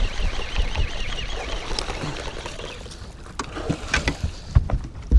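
A hooked musky thrashing and splashing at the surface right beside the boat, with several sharp splashes and thumps near the end.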